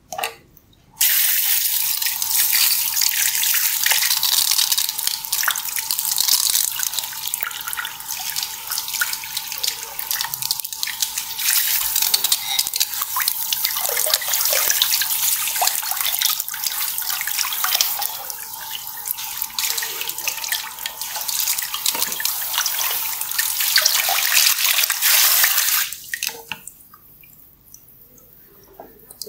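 Tap water running steadily into a sink, starting about a second in and shutting off near the end.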